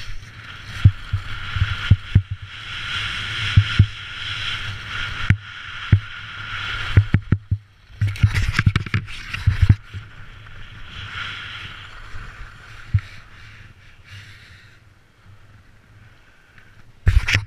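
Skis scraping over hard-packed snow through a series of turns, the hiss swelling and fading with each turn, with many sharp low knocks and thumps mixed in. The scraping dies down in the last few seconds, then a loud burst of noise comes right at the end.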